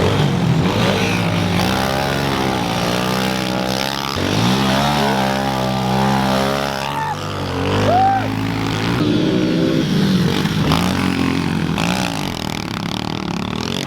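Small four-stroke pit bike engines running on a dirt track, revving up and easing off. The engine pitch climbs, drops about four seconds in, and climbs again.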